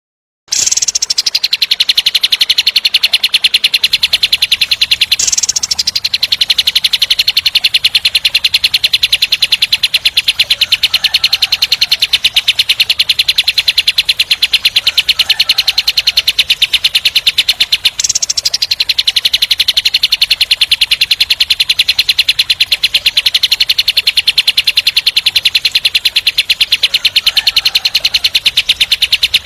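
Kapas tembak songbird giving its fast, tight 'tembak' roll: a long, rapid rattling trill, high-pitched, that breaks off briefly twice and starts again. A few faint lower chirps sound under it.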